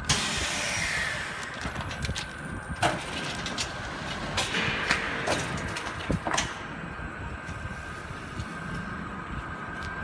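Stainless steel belt-type vacuum packaging machine running with a steady hum. A burst of hissing air at the start fades over about a second and a half, and a handful of clicks and knocks come between about three and six and a half seconds in as the conveyor carries bags into the chamber.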